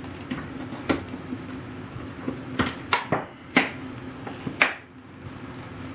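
Handful of sharp wooden knocks and clicks as the restored wooden machinist chest's door panel and drawers are set in place and handled, over a faint steady low hum.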